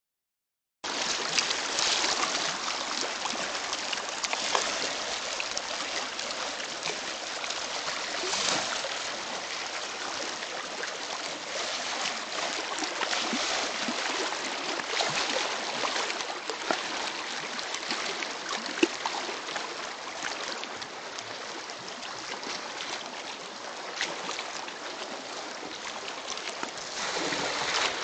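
Lake water lapping and splashing among granite boulders at the shoreline: a steady wash of many small splashes and trickles, starting about a second in.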